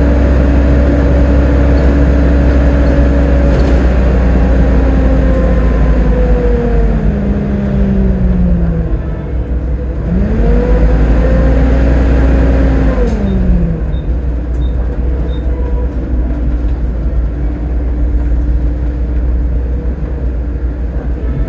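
Volvo B7TL double-decker bus running with a deep rumble and a whine that drops in pitch as the bus slows, rises again as it pulls away, then drops once more as it slows down.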